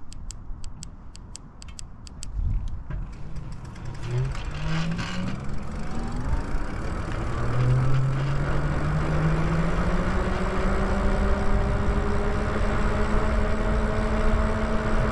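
Lyric Graffiti e-bike's electric motor whining as the bike accelerates, the pitch rising over several seconds and then holding steady at cruising speed, with wind and road noise building underneath. A run of fast light ticks comes first, in the opening couple of seconds.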